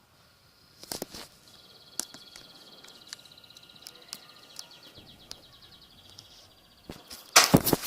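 A songbird singing a long, fast trill of high repeated notes for several seconds. Sharp knocks come about a second in, and a burst of loud knocking and rustling near the end is the loudest sound.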